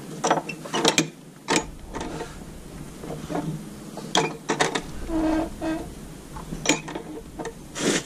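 Wrought-iron hasp on an old wooden door being flipped and fitted over its staple by hand: a series of irregular sharp metal clicks and clanks.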